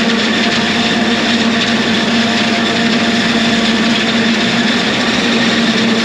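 A self-propelled forage harvester chopping standing corn close by, mixed with the engine of the truck running alongside it. It makes a steady, loud machine noise with a constant hum and whine that does not change.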